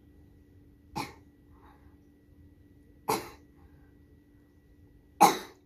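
A girl having a seizure makes three short, noisy, laboured breaths or throat sounds through her open mouth, about two seconds apart, the last the loudest.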